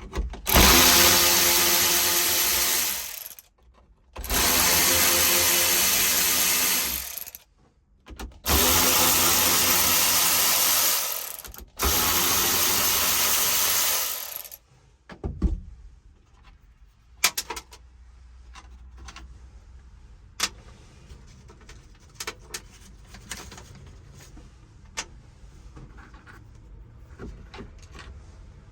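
Power drill with a 7 mm driver backing out screws: four steady runs of about three seconds each, one per screw, then scattered light clicks and taps.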